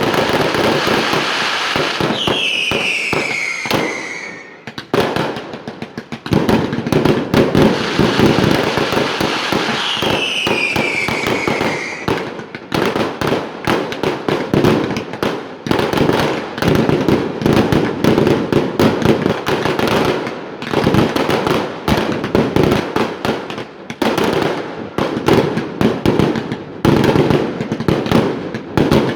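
Fireworks display: dense, rapid bangs and crackles with hardly a pause, thinning briefly around four to six seconds in. Two whistles falling in pitch sound about two seconds in and again about ten seconds in.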